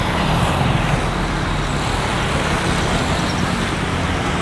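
Road traffic: cars and motorcycles driving past on a busy road, a steady rumble.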